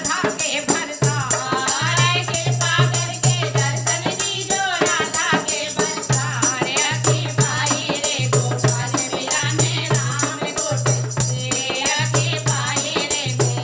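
Two women singing a Hindi devotional bhajan together, over a steady dholak drum beat and the rattle of a hand-held clapper.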